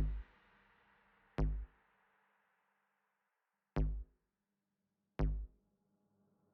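Background electronic music, stripped down to four heavy, deep kick-drum hits spaced a second or more apart, with the track nearly silent between them.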